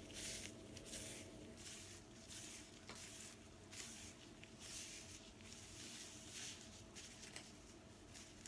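Gloved fingers working through hair coated in a shea butter treatment during finger-detangling: faint, soft squishing, rustling strokes repeating about once every two-thirds of a second.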